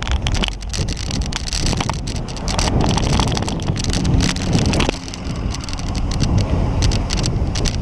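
Bicycle ridden past a line of slow-moving cars, heard from a camera mounted on the bike or rider: wind rushing over the microphone, with many small rattles and knocks from the bike on the road surface.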